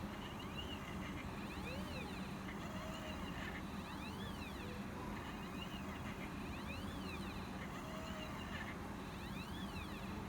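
Stepper motors of a small homemade CNC writing machine drawing text. They make short whines that rise and then fall in pitch as the axes speed up and slow down, about every two to three seconds, over a steady low hum.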